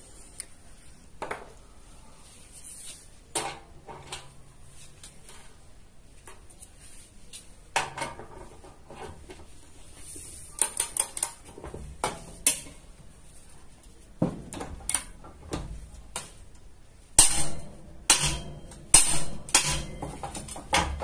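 Hand torque wrench set to 400 Nm, tightening a nut on a steel bolt: irregular ratchet clicks and metal-on-metal clinks of the socket and wrench head, loudest in a run of sharp clicks near the end.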